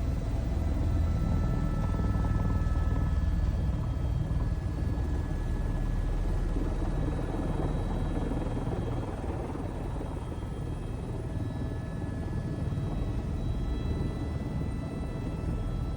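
Tour helicopter running on the ground just after landing: a steady rotor and engine drone with faint, steady high whine tones above it.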